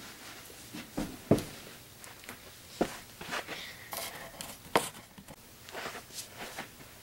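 Thumps, footsteps and rustling of a person doing a forward roll and moving about on a carpeted floor, with a few sharp knocks, the loudest about a second in and near five seconds in.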